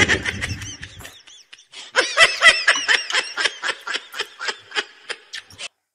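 Laughter: a fast run of short pitched bursts, about four or five a second, for a few seconds, cutting off abruptly near the end.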